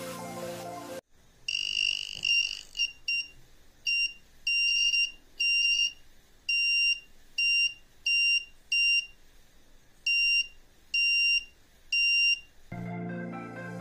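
Buzzer of a homemade BC547 three-transistor AC voltage detector sounding a high, steady-pitched beep in irregular on-off spurts, some brief and some about half a second long, each spurt marking the circuit picking up AC voltage.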